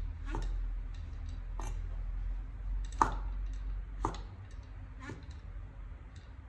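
Steel cleaver slicing through king oyster mushroom stems and knocking on a wooden cutting board, five chops about a second apart, the third the loudest.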